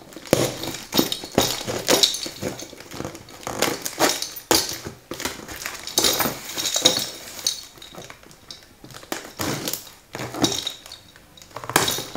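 Cardboard box being opened by hand: a small tool scraping and slitting the packing tape, the tape peeling, and the cardboard flaps rustling. The sound comes as irregular scratches and rips.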